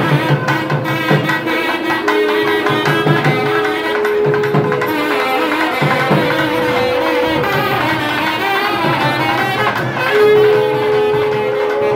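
Nadaswaram and thavil playing temple procession music: the reed horn holds long notes, twice for several seconds, over continuous drumming.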